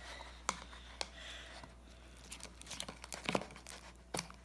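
Homemade shaving-cream slime being mixed in its pot: irregular soft clicks and sticky crackling, with a few sharper clicks spaced out over the seconds.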